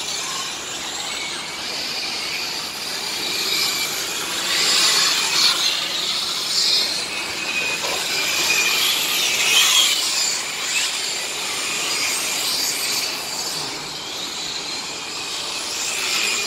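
Radio-controlled model racing trucks lapping the track: a high-pitched whine that rises and falls as the trucks accelerate and pass, over tyre noise.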